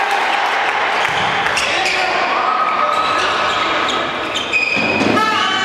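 Volleyball rally in a sports hall: sharp slaps of the ball being played and players' feet on the court floor, with shouts and calls from players and spectators over the echoing hall.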